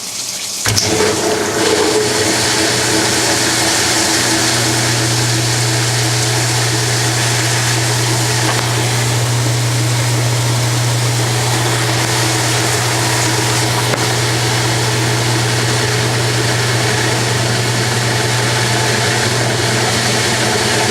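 Washing machine running with its cabinet off: water rushing with a steady low motor hum that sets in just under a second in.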